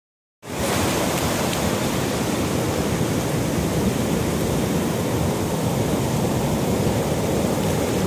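Surf washing up a sandy beach, a steady rush of noise that starts abruptly about half a second in, with storm wind blowing over the microphone.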